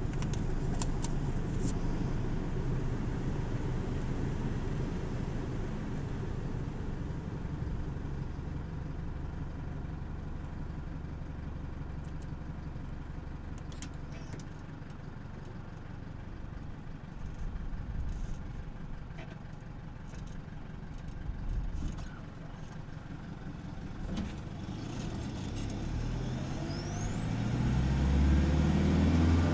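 Isuzu KB300's 3.0 turbo-diesel engine and exhaust heard from beneath the pickup while it is driven: a steady low drone that eases off through the middle. Near the end the engine note climbs and gets louder under acceleration, with a high whistle rising alongside it.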